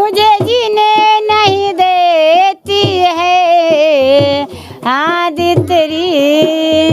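A child's voice singing the opening of an old Hindi film song, holding long high notes with wavering, ornamented turns and short breaks between phrases.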